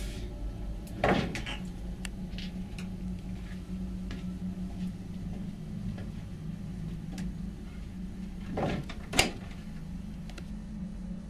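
Two short knocks, about a second in and about nine seconds in, with a few faint clicks between them, over a low steady hum.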